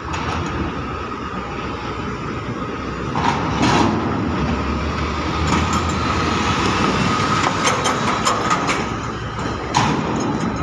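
An empty flatbed truck's diesel engine running as it drives past close by, over a steady machinery hum with a thin high whine. Metallic clanks and knocks come about four seconds in, a few more after that, and one near the end.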